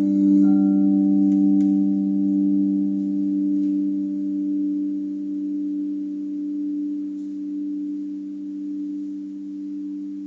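Crystal singing bowls ringing in two low sustained tones that slowly die away. A higher tone joins about half a second in and fades out within a few seconds.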